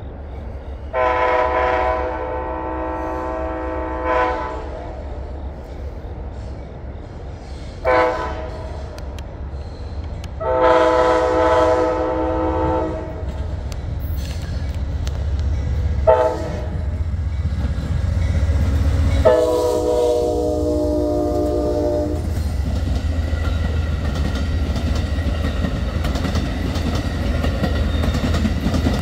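Amtrak locomotive horn sounding five chord blasts in a long, short, long, short, long pattern over the low rumble of the train. After the last blast the train's running noise, with wheels clattering on the rails, grows steadily louder.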